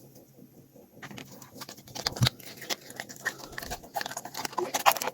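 Fingers squeezing and pulling through sticky slime, giving a string of irregular wet clicks and crackles that start about a second in and grow busier toward the end.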